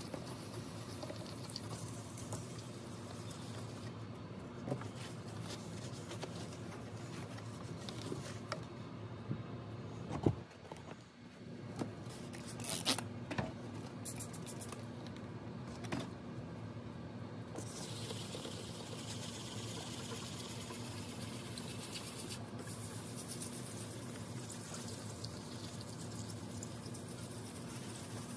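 Hand wet sanding of a plastic emergency light-bar lens: a wet abrasive pad scrubbing soapy plastic, with scattered small clicks. A sharp knock about ten seconds in and a few more knocks shortly after come from handling the light bar, over a steady low hum.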